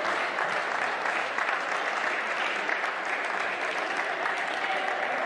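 Crowd of spectators applauding steadily, with some voices mixed in.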